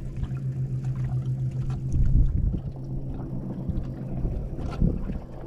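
A boat's motor humming at a steady pitch, cutting off shortly before the end, over low wind and water rumble on the microphone.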